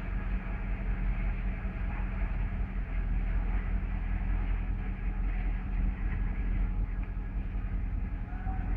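Diesel locomotive J26 319.325 running steadily as it hauls a ballast train slowly along the track, a constant low hum with a steady drone.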